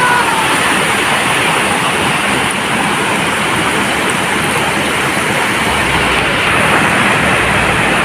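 Sea surf washing onto the shore in a steady, loud rush of noise. A low hum joins in about six seconds in.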